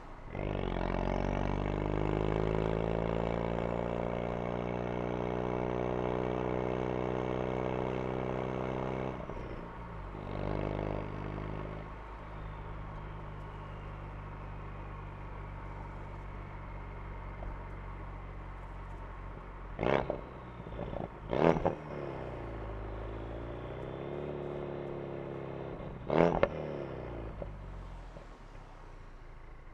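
Ford Focus RS engine and exhaust heard from inside the cabin, accelerating hard with the pitch rising and then holding for about nine seconds, then a brief rev and a quieter steady run. Three sharp bangs stand out, two close together about twenty seconds in and another near twenty-six seconds.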